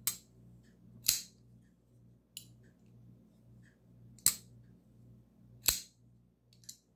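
Ganzo Adimanti Neformat frame-lock folding knife on ball bearings being flipped open and snapped shut: four sharp metallic clicks, two in the first second or so and two more about four and five and a half seconds in, with fainter clicks between.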